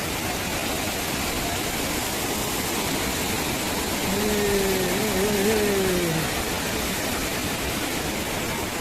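Steady rushing roar of a waterfall. About halfway through, a wavering pitched sound lasting about two seconds rises over it.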